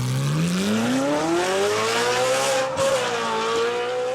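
Supercar engine revving up under hard acceleration, its pitch climbing steadily for about two and a half seconds. A brief break comes near three seconds in, then the engine holds high.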